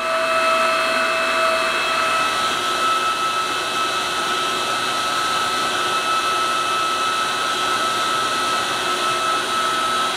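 Potter USA electric hydraulic jewelry press running steadily with a whine, pressing a silver sheet into a flat cuff in the bracelet former die. A lower tone fades out about two seconds in.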